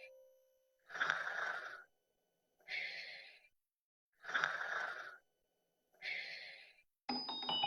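Four breathy, hiss-like bursts of about a second each with short gaps between, then music with ringing chime notes starting near the end.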